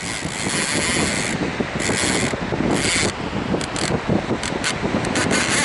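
Fishing reel at work during a fight with a big fish: a high buzz in three spells in the first three seconds, the first over a second long, then a run of short clicks. Wind buffets the microphone throughout.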